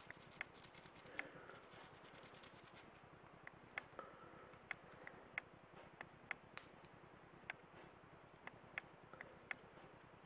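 Faint scratchy scrubbing of a small bristle brush on a small copper insert during the first few seconds, with scattered sharp clicks, one or two a second, throughout, which the owner takes for the camera working.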